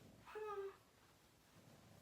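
A single short spoken "huh?", then near silence: room tone.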